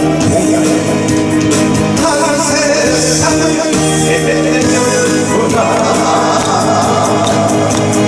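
A man singing a Korean trot song into a handheld microphone, amplified over backing music with a steady beat.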